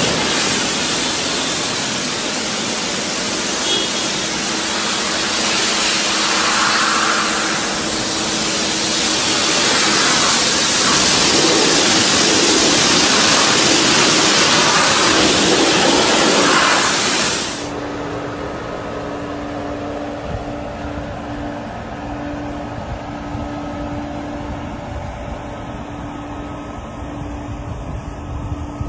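Pressure-washer spray hissing loudly against a car's bodywork, swelling and easing as the jet moves. A little past halfway it cuts off abruptly to a quieter, steady low hum.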